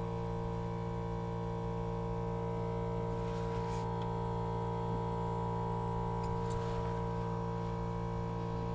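A steady hum made of several constant tones, unchanging in pitch and level, with a few faint light clicks about halfway through.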